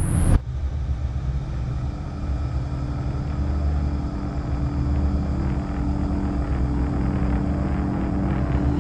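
Low, steady rumbling drone with several held humming tones, slowly growing louder. It opens with a sharp swell about a third of a second in that cuts off the high chirring of crickets.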